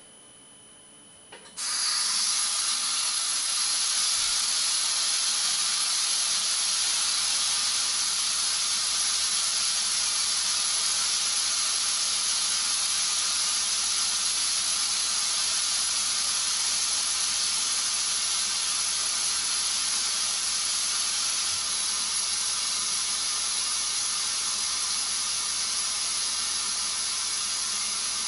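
Air hissing steadily out of a 2011 Chevrolet Volt's tire through the valve stem, held open with an air chuck. The tire is being deflated so that its TPMS sensor transmits during the relearn. The hiss starts about a second and a half in.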